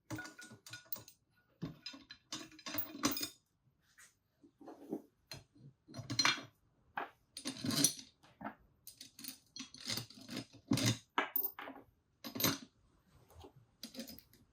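Small steel tool parts clinking and knocking together irregularly as a bearing press is handled and set up: a socket, plate and nut used to push needle bearings into a motorcycle swingarm.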